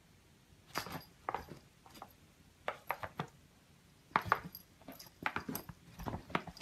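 A cat's paw and claws tapping and scraping at a tablet's glass screen: scattered short, light clicks, coming quicker and closer together in the second half.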